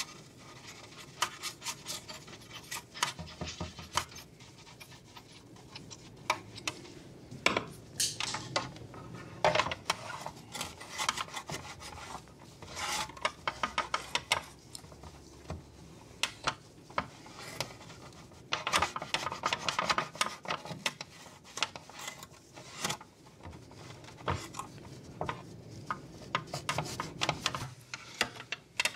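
A small brush scrubbing the grooves of a plastic Jaguar XK8 headlight reflector, then a towel rubbing over the reflector, with irregular scratching and many light clicks as the housing shifts on the bench.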